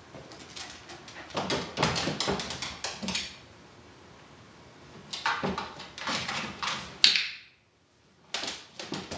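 A small terrier going into a plastic travel crate and moving about in it, heard as two bursts of quick clattering knocks and scrabbling, with one sharp, loud click near the end.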